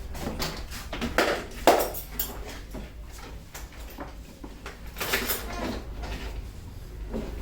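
A barber's hands working a customer's head and hair in a vigorous head massage: irregular rubbing and striking strokes, the loudest a little under two seconds in, over a steady low hum.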